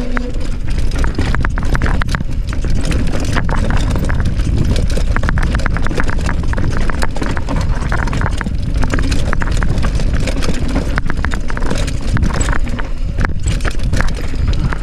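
Mountain bike riding down a rough trail: a dense, irregular clatter of the tyres and bike over rocky ground, over a steady low rumble.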